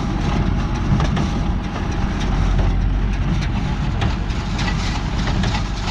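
Tractor running steadily while pulling a New Holland 68 small square baler through the hay, a constant low rumble with faint irregular clicks.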